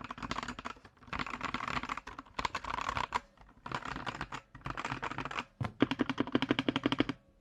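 Typing on a computer keyboard in quick bursts of rapid key clicks with short pauses between them; the last burst is the fastest and most even.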